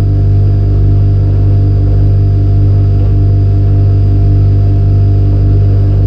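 Refrigerator hum from a processed field recording: a loud, steady low drone with several steady higher tones layered over it and a faint high whine.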